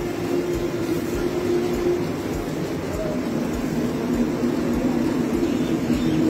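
Maruti Alto K10's three-cylinder petrol engine running with a steady hum, its pitch dropping a step about three seconds in as the revs change. The engine has just been decarbonised.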